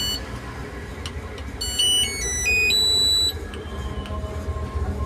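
Whirlpool top-loading washing machine control board's buzzer playing a short beeping tune of quick stepped notes, about two seconds in. A low steady rumble runs underneath.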